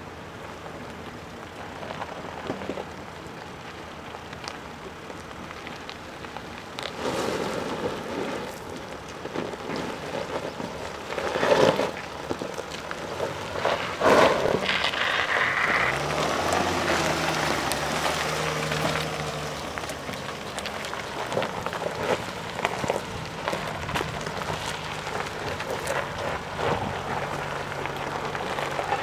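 Mercedes GLE SUV rolling slowly over a rough gravel and stone track: tyres crunching on loose stones, with a few sharp knocks about halfway through. Its engine is heard running low as it passes close by.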